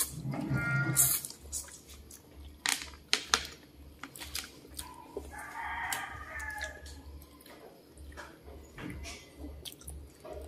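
A rooster crowing in the background, one drawn-out call near the middle, over scattered sharp clicks and rustles of berries being picked off a leafy branch and eaten.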